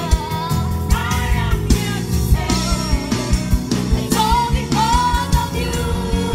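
Live gospel band music: a woman sings the lead melody into a microphone over bass guitar and a drum kit keeping a steady beat.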